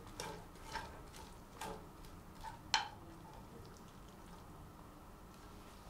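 A few light, irregular clicks and taps over about three seconds, the last the sharpest, then only faint room hiss.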